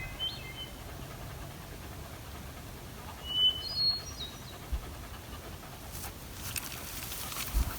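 A small bird chirping: a few short, high notes about three and a half seconds in, over a steady low background. Light crackling rustles and a couple of low thumps come near the end.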